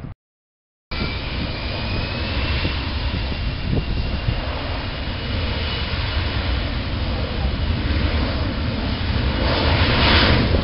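US Airways Boeing 737 Classic's turbofan engines running at high power as it rolls down the runway: a steady jet roar with a faint high whine that climbs slightly in pitch in the first seconds, growing a little louder near the end. It cuts in after a short gap of silence at the very start.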